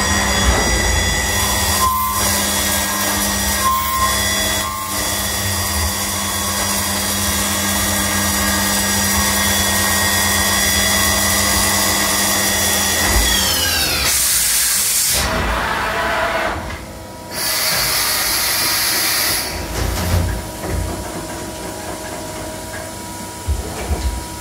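Mazak Integrex 35 multi-tasking lathe's spindle spinning up with a rising whine, running steadily while the part is cut under coolant spray, then winding down about 13 seconds in. Two bursts of hissing follow, then a lower steady machine running noise.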